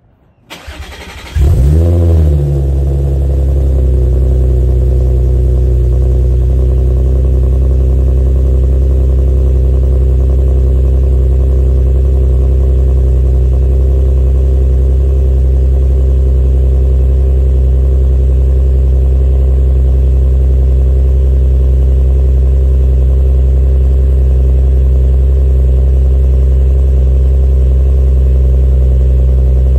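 Cold start of a 2016 Audi S4's supercharged 3.0-litre V6 through longtube headers and a catless CTS Turbo cat-back exhaust: a short crank, then it catches about a second and a half in with a rev flare that rises and falls, and settles into a loud, steady high idle.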